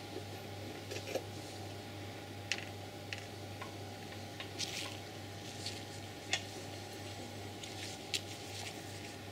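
Faint, scattered metallic clicks and ticks from an Audi RS6's BCY V8 being turned over slowly by hand with a breaker bar on the crankshaft pulley, rotating the torque converter round, over a steady low hum.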